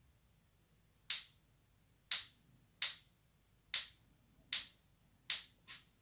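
African grey parrot making seven short, sharp clicks, about one a second, the last two close together.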